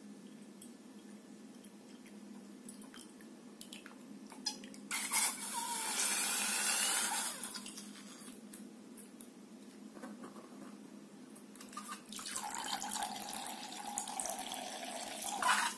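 Liquid pouring from the cut neck of a rubber balloon into a glass bowl: a loud rushing pour about five seconds in, then a stream of water running in for the last few seconds with a faint ringing tone, cutting off sharply at the end. Faint clicks and handling of the balloon in between.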